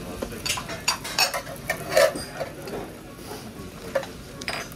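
Metal spatulas clinking and scraping on a steel teppanyaki griddle while an okonomiyaki is pressed and worked: a handful of sharp clinks, the loudest about two seconds in.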